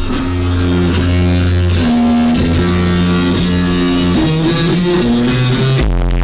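Music with held guitar-like notes over a heavy bass line, cutting abruptly near the end to electronic music with a steady deep bass.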